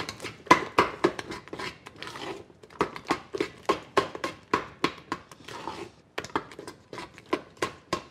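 A spoon stirring thick cake batter in a stainless steel mixing bowl, knocking and scraping against the bowl's sides in a quick, uneven run of about three taps a second: a final stir to work out lumps.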